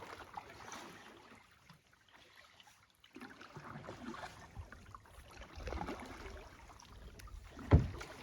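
Faint splashing and rustling water noise, uneven and broken by small knocks, with one sharp, loud thump near the end.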